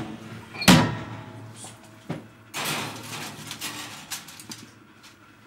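Oven door pulled open, dropping to its stop with a loud clunk under a second in. A foil-covered Pyrex baking dish is then pushed onto the metal oven rack with a scraping rattle lasting about two seconds.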